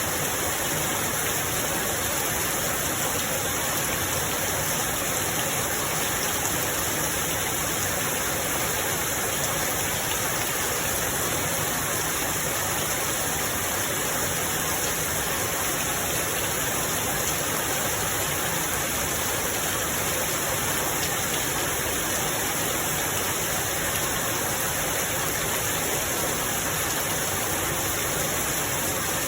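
Steady rain falling, a dense, even hiss with no thunder and no single drops standing out.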